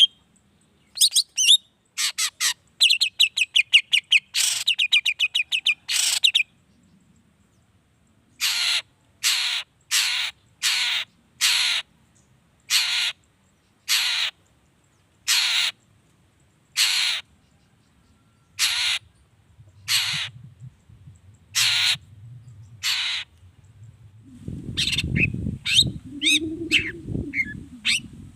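Long-tailed shrike (cendet) calling: a quick run of harsh chattering notes, then a slow, even series of single harsh notes, a little over one a second. Near the end it breaks into faster chatter over a low rumbling noise.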